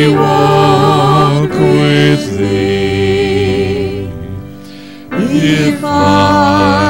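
A hymn being sung with instrumental accompaniment, with long held notes and a short break between verses about two-thirds through.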